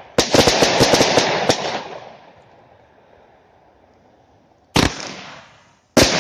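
Category F2 consumer fireworks: a loud burst about a quarter second in, breaking into a rapid string of pops that fades over about two seconds. After a lull, one sharp bang just before the five-second mark and another near the end.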